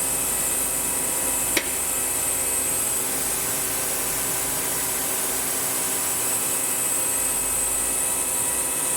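Steady whine and hum of a Tsugami S206 CNC Swiss-type lathe with an axis being jogged, with one sharp click about a second and a half in.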